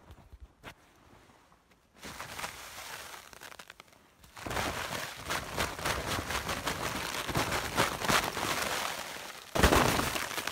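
Snow crunching and swishing: faint at first, then a dense, crackly crunching from about four seconds in, with a louder rush near the end.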